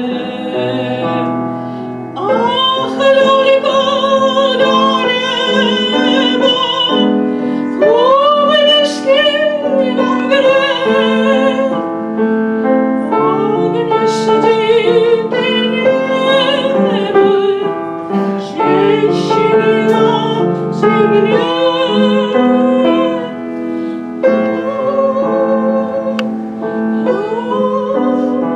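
A woman singing in a classical, operatic style with vibrato, in long held phrases, accompanied by piano.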